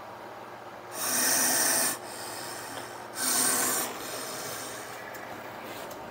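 Gaboon viper hissing twice. Each hiss is a loud, breathy rush of air; the first lasts about a second and the second is a little shorter.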